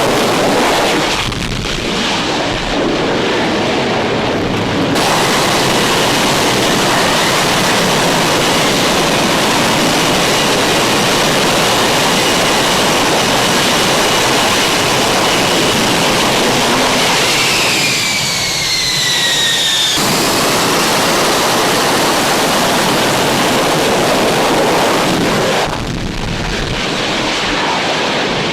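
F-35A Lightning II's single F135 afterburning turbofan running loud in a steady jet roar. About eighteen seconds in, a high whine slides down in pitch as the jet passes.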